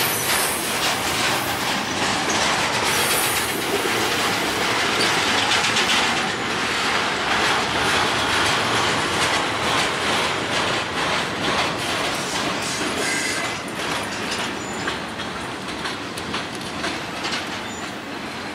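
Freight cars of an intermodal stack train rolling past: steady rumble and hiss of steel wheels on rail with rapid clicking over the rail, and a few brief high wheel squeals. It grows quieter over the last few seconds.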